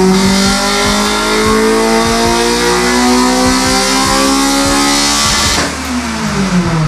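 Honda Civic's naturally aspirated four-cylinder engine on a chassis dynamometer, its revs climbing steadily under load for about five and a half seconds, then falling away near the end.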